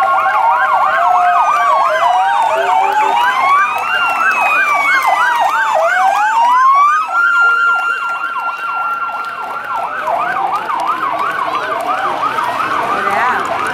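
Sirens of several Hellenic Police patrol cars sounding at once as they drive past. A fast yelp rises and falls several times a second over slower wails, and one siren holds a steady tone for a few seconds just past the middle.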